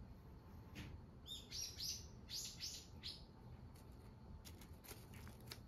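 A wild bird chirping: a quick series of about six short, high notes between one and three seconds in. A few faint rustling clicks come before and after.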